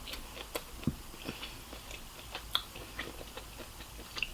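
Close-up eating sounds: a person chewing, with scattered soft clicks and mouth smacks at irregular intervals.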